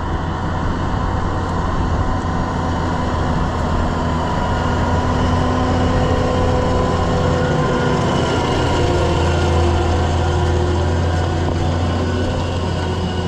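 Case IH Puma 240 CVX tractor's six-cylinder diesel engine running steadily with a deep, even drone, working under load while pulling a plough on tracks.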